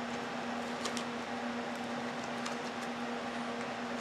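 A steady electrical hum with an even hiss, the room's background noise. A few faint ticks come from the cardboard box being handled.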